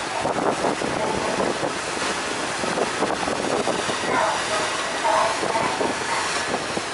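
Steady rushing noise aboard a ferry under way: wind buffeting the microphone over the drone of the ship's engine and its churning wake.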